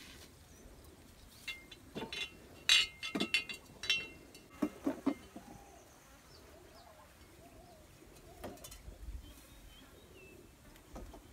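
Milk-filled glass bottles clinking and knocking against each other as they are handled, a quick cluster of clinks in the first half. Faint bird calls follow.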